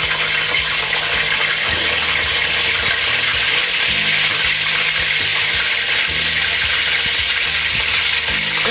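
Salted fish frying in hot oil in a stainless steel pot as the pieces are dropped in: a steady sizzling hiss.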